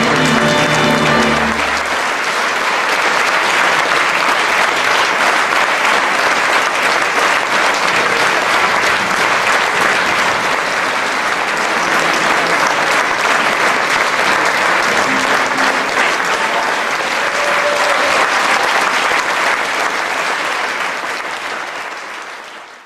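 An orchestra's final held chord, cut off about two seconds in, then a theatre audience applauding steadily. The applause fades out near the end.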